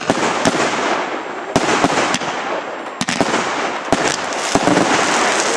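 Fireworks going off: about six sharp bangs, roughly half a second to a second and a half apart, over a continuous hiss.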